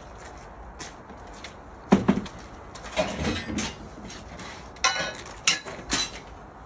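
Metal scaffold parts knocking and clanking as a guardrail post and its clamp are handled and fitted: a few sharp clanks, the loudest about two seconds in and a cluster again around five to six seconds, some with a short ring.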